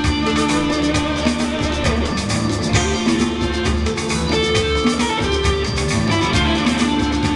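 Recorded rock music playing, with guitar and a drum kit.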